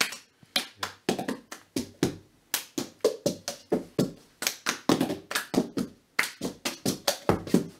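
Hands clapping and plastic cups being tapped and knocked on the floor in the cup-game rhythm, a quick run of sharp claps and knocks about four a second, with brief breaks just after the start and about six seconds in.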